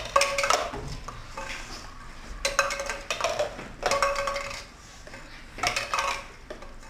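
Plastic cups knocking down onto a game board and tabletop, in quick clusters of clacks with a short hollow ring, as cups are pulled from stacks and set into the squares of a tic-tac-toe grid.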